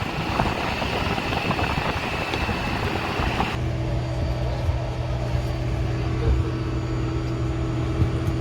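Rushing noise with a thin, steady high whine, typical of a jet airliner's surroundings on the apron. It cuts off abruptly about three and a half seconds in, giving way to the steady low hum of a parked airliner's cabin ventilation and engines.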